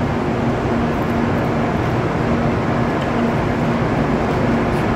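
Steady hum and rumble of a shinkansen station platform, with a low droning tone running under it that drops out briefly about a second in.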